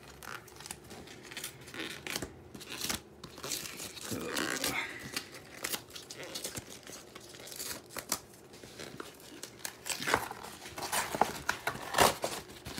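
Shipping envelope and its packaging being torn open and crinkled by hand: irregular rips and rustles, the loudest near the end.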